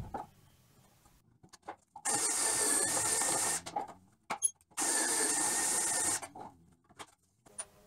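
Cordless drill running twice, each run about a second and a half, boring 3/8-inch holes into the ends of wooden 2x4s. A few light clicks and knocks come between the runs.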